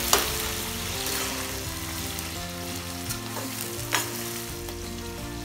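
Chopped tomatoes sizzling in hot oil with onion and garlic in a stainless steel kadai, stirred with a perforated steel ladle. The ladle clinks against the pan twice, just after the start and about four seconds in.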